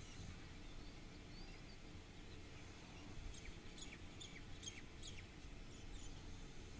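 Small bird chirping: a quick run of about seven short, high chirps that sweep downward, a little past three seconds in, over a faint, steady low rumble.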